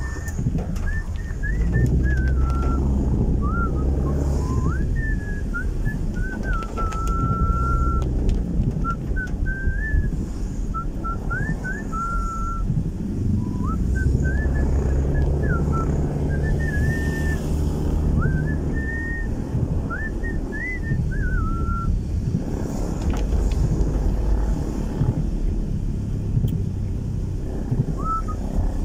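A person whistling a wandering tune in short sliding phrases, breaking off for several seconds about three-quarters of the way through and starting again near the end. Under it is the steady low engine and tyre rumble of a car, heard from inside the cabin.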